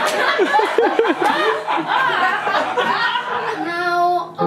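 Audience laughing in a hall. Near the end a held musical note comes in.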